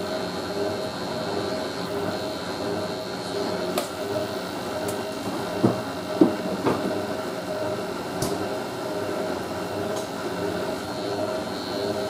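Hotpoint 9530 front-loading washing machine running mid-cycle: a steady motor hum and whine, with a few sharp knocks from the machine around the middle.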